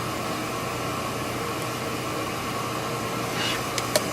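Steady hiss with a low hum underneath, and a few faint clicks near the end.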